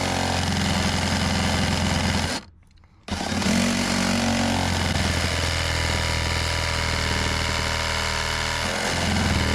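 Reciprocating saw running, its blade sawing into a wooden deck board in a plunge cut. It stops about two and a half seconds in, then starts up again and keeps cutting.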